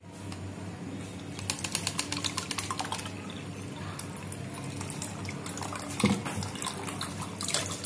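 Frothy blended litchi juice poured from a plastic blender jar through a mesh strainer into a bowl, splashing and trickling, most busily between about one and a half and three seconds in.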